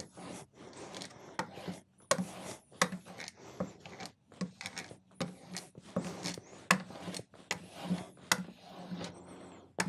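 A plane blade clamped in a honing guide being stropped on a strop board: steady back-and-forth rubbing strokes, with a sharp tick at each stroke about every 0.7 s.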